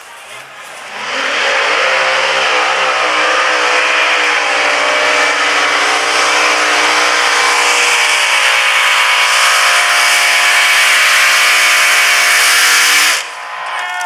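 Mini unlimited class pulling tractor of about 2,500 hp at full throttle through a pull against the brake sled. The engine note climbs about a second in, holds high and steady, then cuts off abruptly near the end as the pull finishes.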